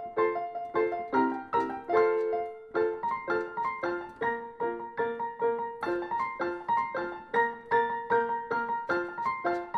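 Background piano music: a steady run of single struck notes, about three to four a second.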